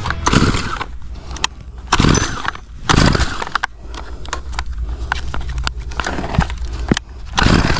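Stihl two-stroke brush cutter being readied and pull-started: clicks of hands and controls on the engine housing, and several short pulls of the starter cord (around two and three seconds in and again near the end), the engine not catching.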